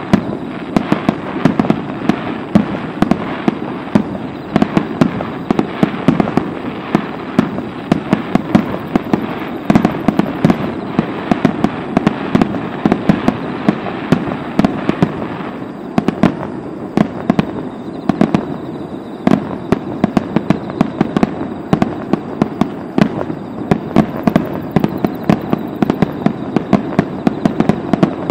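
Fireworks display: a dense, continuous barrage of sharp bangs and crackles, several a second, over a rolling rumble.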